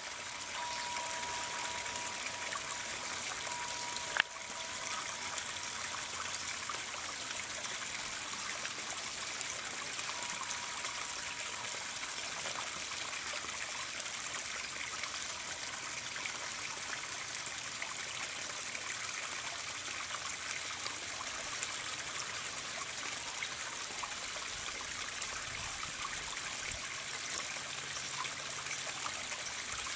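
Small garden-pond waterfall spilling over stacked rocks into the pond: a steady splashing trickle. A single sharp click about four seconds in.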